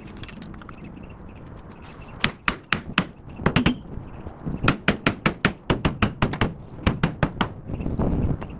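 A hammer beating on the steel frame rail of a Mack R-model truck, trying to knock off a half-inch steel plate bolted along the rail. The blows come fast and ring sharply, in several bunches of a few strikes each, beginning about two seconds in.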